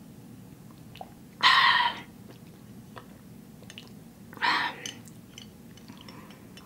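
A person sipping a drink through a metal straw from a glass jar: two loud airy slurps, about a second and a half in and again about four and a half seconds in, with small mouth and swallowing clicks between.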